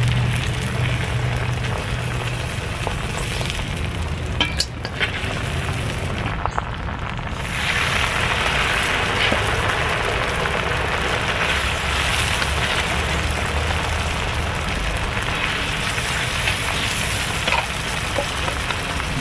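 Chicken pieces sizzling as they fry in oil in a cast-iron wok, with a few clicks of a metal spatula against the pan about four seconds in. The sizzle grows louder about eight seconds in.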